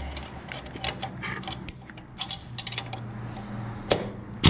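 Irregular metallic clicks and clinks from handling a pneumatic impact wrench with its socket and air hose, and a loud sudden burst right at the end.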